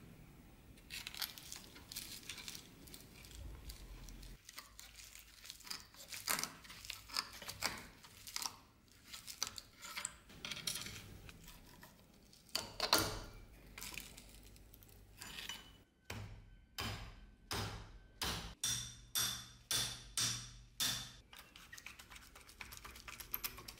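Metal clanking and scraping as a steel bar pries the old wire off a rusty axe head held in a bench vise, followed in the second half by a steady run of hammer blows on the axe head, about two a second, each with a short metallic ring.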